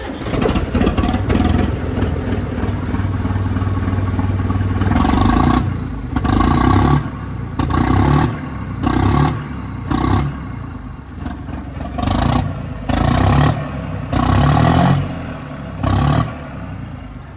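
John Deere 5305 tractor's diesel engine starting, idling for about five seconds, then revved in a series of short blips about a second apart through its newly fitted steel exhaust silencer, the turbo whistling on the revs.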